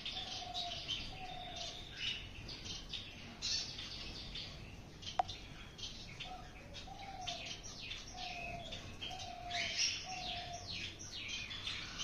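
Small finches chirping and twittering in a busy aviary. Under the chirps come two runs of short, low, slightly falling coos, one in the first two seconds and another from about six to ten seconds. A single sharp click lands about five seconds in.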